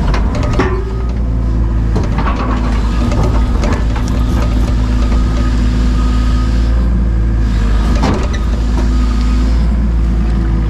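Takeuchi TB285 compact excavator's diesel engine running steadily, with several sharp knocks of rip rap rock against the bucket and other rocks, the strongest about eight seconds in.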